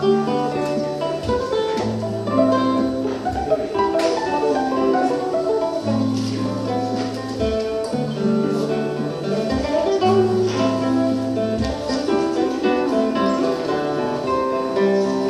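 Two acoustic guitars playing a fingerpicked duet: a melody of plucked notes over ringing bass notes.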